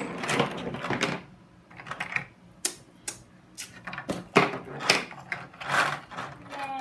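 Plastic toy molds and tools clicking and clattering on a tabletop as they are handled, with a clear plastic blister tray crinkling. Irregular clicks and rustles with short pauses between them.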